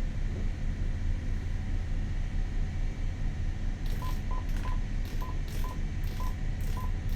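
Steady low drone of the boat's engine, and from about four seconds in a string of short electronic key beeps, two or three a second, as the channel buttons on the VHF marine radio are pressed to change channel.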